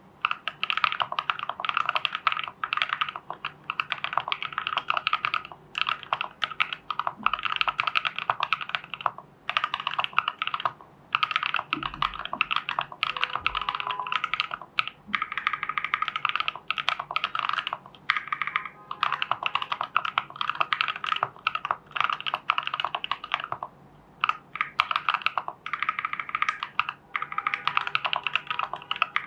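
Typing on a TU40 mechanical keyboard with a plastic case, KTT Strawberry linear switches and XMI keycaps, dampened by case foam, PCB foam and a tape mod. The keystrokes come in fast continuous runs broken by a few short pauses.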